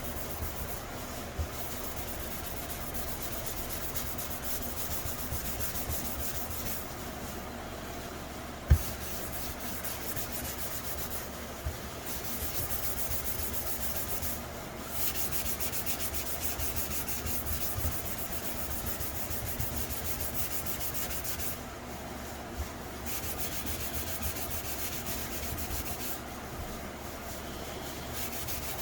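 Fine abrasive pad rubbed back and forth by hand over a helmet's cured clear coat, a steady hissing scrub that pauses briefly several times. A single sharp knock sounds about nine seconds in.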